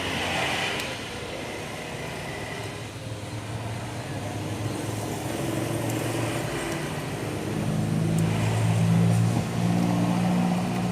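A motor vehicle engine running, its pitch shifting up and down and growing louder in the last few seconds.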